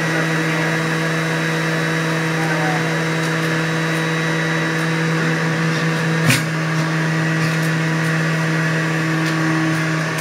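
Juiceman centrifugal juicer motor running with a steady hum as kale is pushed down the feed chute and shredded. A single sharp knock comes about six seconds in.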